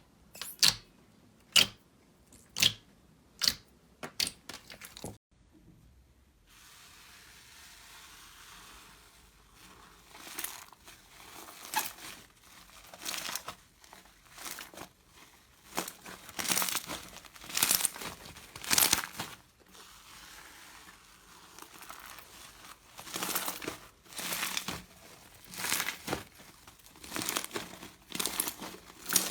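Slime being pressed and squeezed by hand: sharp pops and snaps about once a second, then after a break a run of crackling, crinkling squishes at roughly the same pace.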